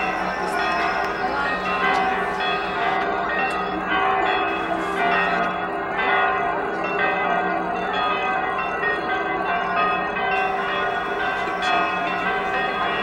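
Church bells pealing: many bells ringing together, their tones overlapping and lingering in one continuous peal.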